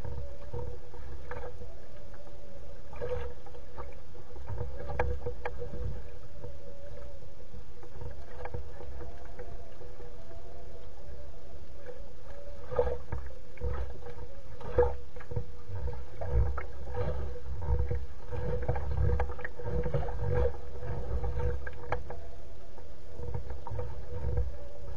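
Small waves lapping at the edge of a floating loon nest, with wind rumbling on the microphone, scattered small knocks and a faint steady hum.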